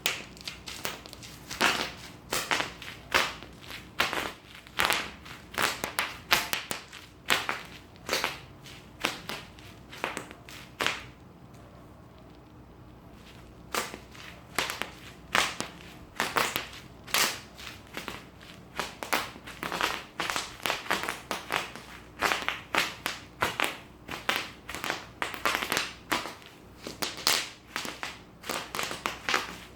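Bubble wrap being popped: a long run of sharp pops, roughly one or two a second, with a pause of about three seconds starting about eleven seconds in.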